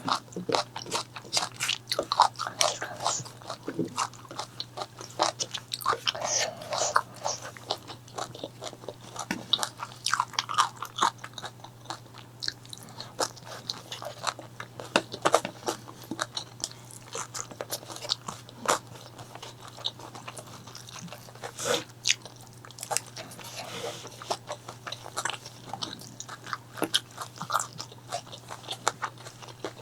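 Close-miked biting, crunching and chewing of crispy food: a dense, irregular run of sharp crunches and clicks over a steady low hum.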